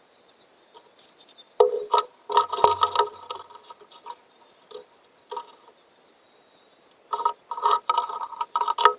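Small metal parts being handled: rapid clicking and clinking in two bursts, one from about a second and a half in and one near the end.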